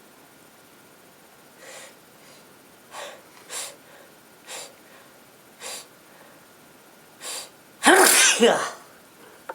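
A woman with a cold takes a series of short, sharp breaths that build up, then lets out one loud sneeze near the end.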